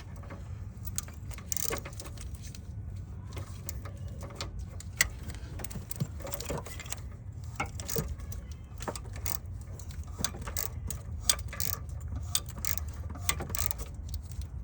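Irregular metallic clicking and clinking of a ratchet driving an oxygen sensor socket as the loosened oxygen sensor is backed out of a GM 2.4 L engine, over a steady low hum.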